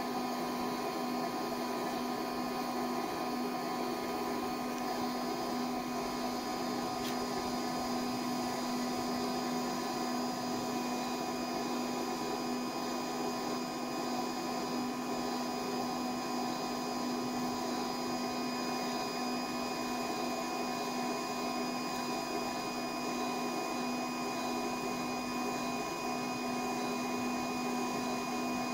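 Durst RCP20 print processor running: its new geared DC drive motor turns the rollers with a steady, even hum and a constant tone. It draws a sheet of paper in through the roller transport.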